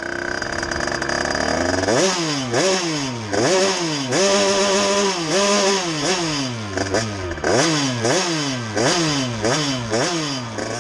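Derbi two-stroke engine, bored to 70cc with an Airsal cast-iron cylinder and breathing through a Bidalot expansion pipe, idling for about two seconds and then revved in quick throttle blips, each rise in pitch dropping straight back, with a couple of blips held briefly at higher revs.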